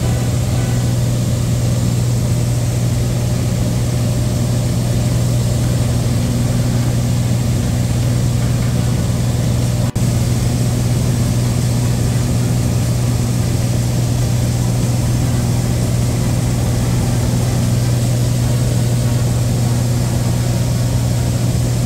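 Light airplane's piston engine and propeller droning steadily, heard inside the cabin, with a brief dropout about ten seconds in.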